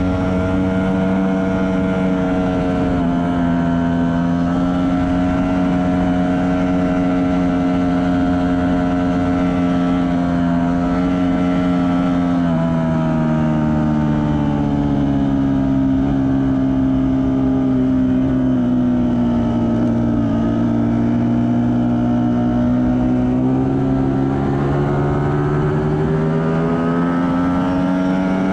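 Ducati Panigale V4 S V4 engine under sustained high-speed load through fast sweepers, heard onboard with wind rush. The pitch holds fairly steady, drops about twelve seconds in, sags around twenty seconds, then rises again near the end.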